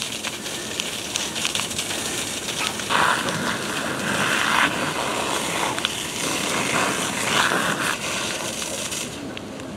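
Burning barn timbers crackling with many sharp pops, under the steady rush of a fire hose's water spray; twice the hiss swells louder where the water hits the fire.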